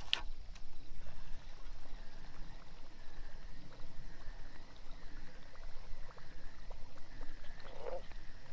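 Fishing reel being cranked steadily during a retrieve, a soft whirring that swells and fades a little more than once a second, over a low wind rumble on the microphone.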